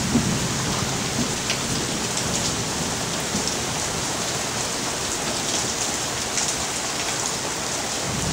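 Rain from a thunderstorm falling steadily, a dense even hiss with scattered drop ticks.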